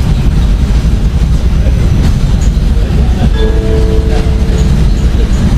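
Tram rolling along its track at speed, a loud steady low rumble of wheels on rail. A brief whining tone rises over it about three and a half seconds in, lasting about a second.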